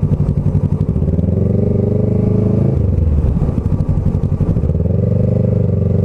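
Motorcycle engine under way, heard from the rider's position. Its pitch climbs about a second in, dips briefly near the middle, then climbs again and holds steady, with a low rumble of wind and road noise underneath.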